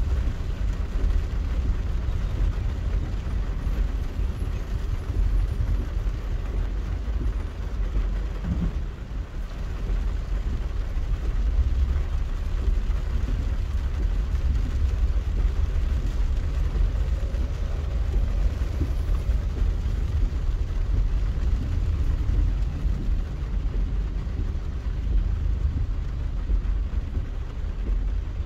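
Steady low rumble of a car on the move: engine and tyre noise, with no distinct horns or impacts standing out.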